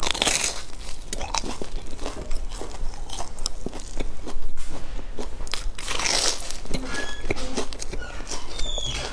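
Crunchy bites into a crusty, crumb-coated fried bun, followed by close-up chewing with many small crackles. There are a few louder crunches among the chewing.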